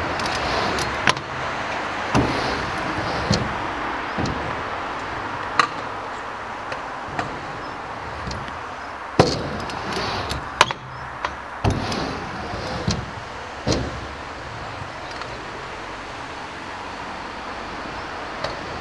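Stunt scooter's wheels rolling over skatepark ramps with a steady rush, broken by irregular sharp clacks and bangs as the scooter lands and knocks against the ramps; the loudest bangs come about halfway through.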